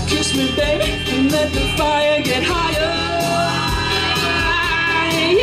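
Pop-rock song played loudly over a stage PA: a man singing over a steady beat.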